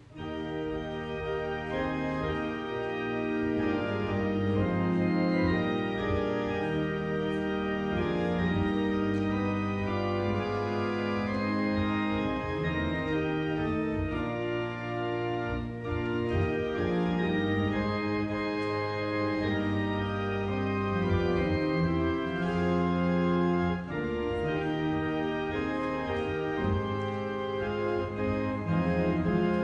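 Church organ playing music in full, held chords that change every second or so, starting abruptly.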